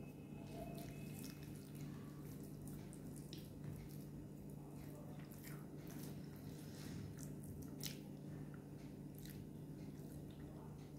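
Fingers mixing rice with curry on a plate by hand, making faint, scattered small clicks, over a steady low hum.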